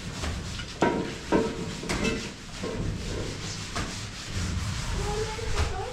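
Scrubbing by hand, a repeated rubbing and scraping, with several sharp knocks in between.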